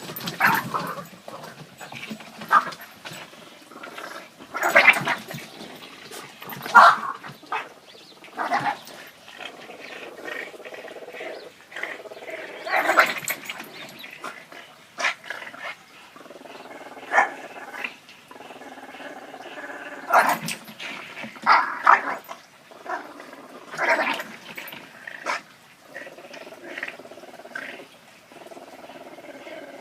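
Two Boston Terriers playing together, growling and barking in short irregular bursts every second or two.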